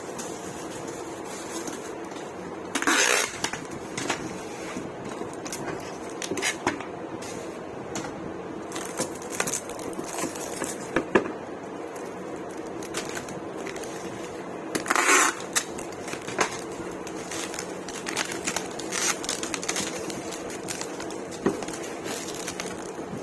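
Electric kettles and their packing materials being handled: scattered light clicks and clinks, with two short noisy bursts, one about three seconds in and one near the middle, over a steady hum.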